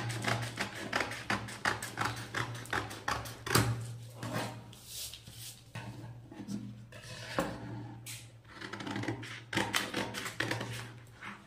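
Scissors snipping through stiff chart paper in a run of quick cuts, with a short break about halfway through before the snipping resumes.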